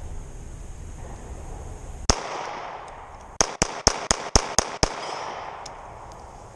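Springfield Armory XDS 3.3 9mm pistol being fired: a single shot about two seconds in, then seven more in a fast string over about a second and a half, each shot followed by a brief ringing tail.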